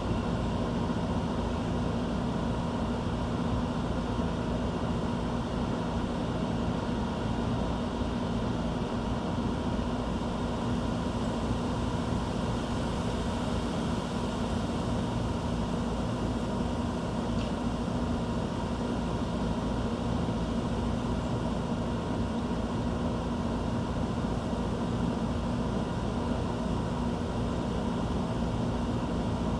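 Steady mechanical hum with a few low steady tones running under it, unchanging throughout, like an outdoor machine or distant traffic.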